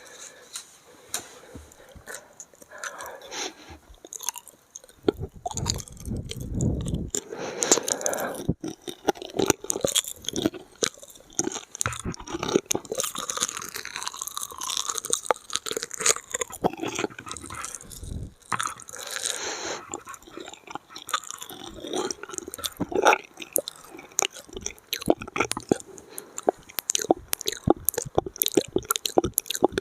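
Close-miked mouth sounds: chewing and crunching food, with many quick wet clicks.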